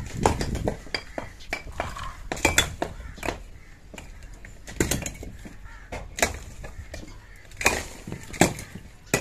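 Irregular knocks and clinks of hard objects being handled, several sharp impacts spread a second or so apart, some with a short ring.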